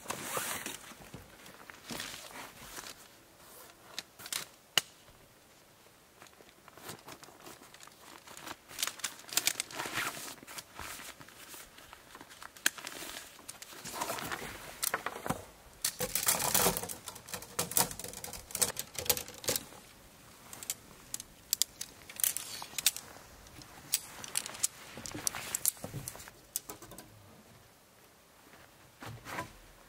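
Camping gear being handled: irregular rustling and crinkling of fabric or packaging, with scattered light clicks and small knocks coming in stop-start clusters.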